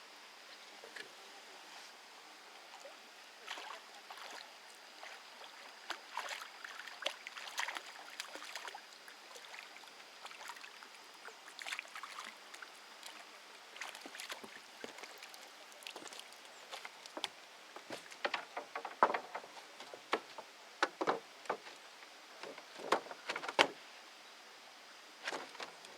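Water splashing and sloshing in short, irregular strokes, growing more frequent and louder in the last third.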